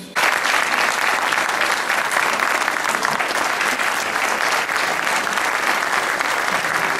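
Audience applauding: dense, steady clapping from many hands that cuts in suddenly at the start.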